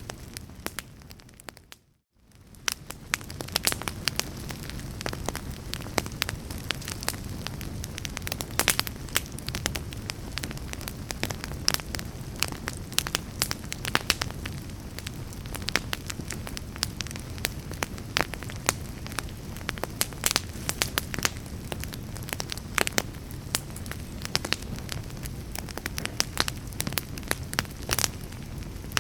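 Logs burning in a fireplace: a steady low rumble of flames with frequent sharp crackles and pops. About two seconds in, the sound fades almost to silence and comes back within a second.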